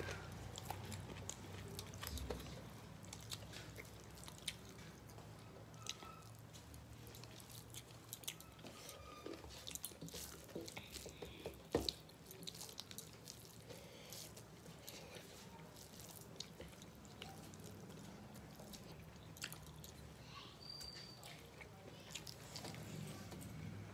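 Close-miked eating by hand: fingers mixing and squishing rice and curry on metal plates, with chewing and many small wet clicks and smacks. One sharper click about halfway through.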